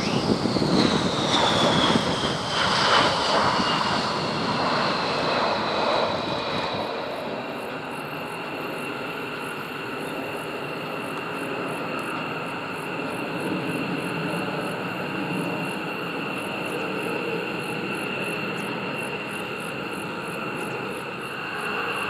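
F-15DJ Eagle's twin jet engines: a whine that falls steadily in pitch over the first six seconds as the jet rolls past on the runway, then a steady engine whine over a low rumble.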